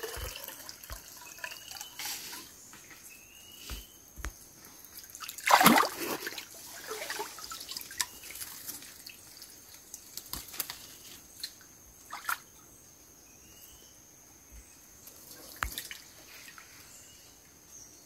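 Water sloshing and dripping as a person moves and works with their hands in a shallow stream, with scattered small splashes and one loud splash about five and a half seconds in.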